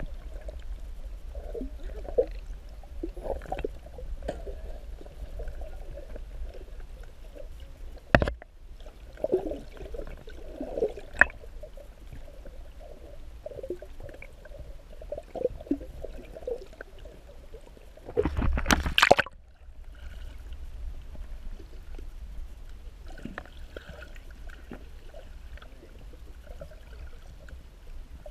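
Muffled underwater noise heard through a camera's waterproof housing: a steady low rumble with faint gurgles and small knocks, a sharp click about eight seconds in, and a louder rush lasting about a second some way past the middle.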